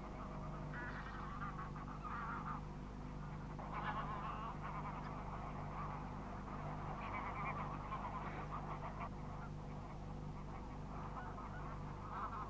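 Faint, scattered squawking calls from a nesting colony of storks and herons, over a steady low hum.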